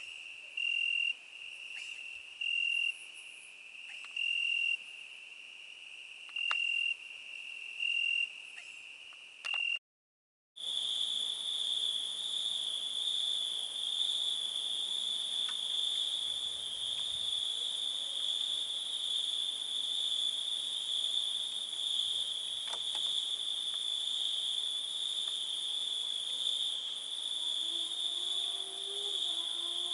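Crickets trilling steadily at night, at first one even high trill with louder pulses standing out every second or two. The sound cuts out for under a second about ten seconds in, then a continuous, louder and slightly higher-pitched trill runs on.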